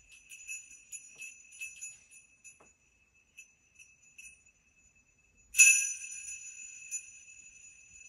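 Handheld stick of sleigh bells jingling. A few light jingles die away, and after a short pause one sharp shake rings on and fades slowly, with a smaller jingle about a second later.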